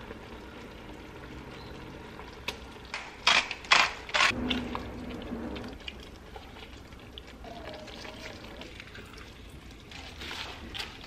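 A few sharp knocks about three to four seconds in, then a wooden spoon stirring thick coconut curry in an enamelled cast-iron pot. Near the end there is a rustle as fresh spinach leaves are dropped in.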